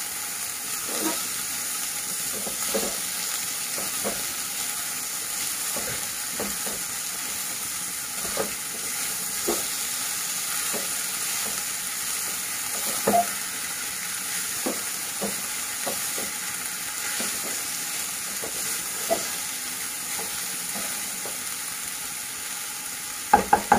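Dried sangri pods, onions and spices sizzling in oil in a non-stick kadai while a spatula stirs them, with scattered light scrapes and taps of the spatula on the pan. A few louder knocks come near the end.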